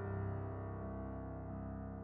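Grand piano playing classical music: sustained chords ringing and slowly fading away.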